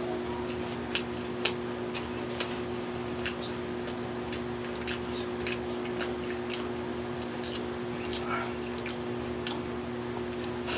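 Close-up chewing and wet lip-smacking while eating braised pork hock adobo: a string of small, irregular moist clicks. A steady low hum runs underneath.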